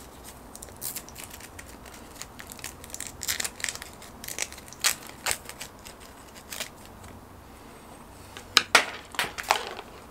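Small hook-and-loop (Velcro) fastener being peeled off a coiled barbecue thermometer probe cable and the wire handled, heard as faint irregular crackles and clicks, with a few louder ones near the end.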